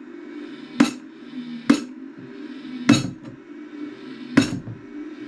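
The faulty exhaust fan inside a ZD-915 desoldering station drones with a steady buzz; it makes a horrible noise and does not spin properly. Over it, a hand smacks the top of the station's case four times, about a second apart.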